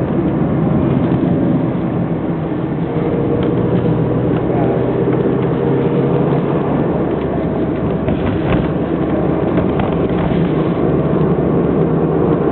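Car driving: a steady engine hum over road noise.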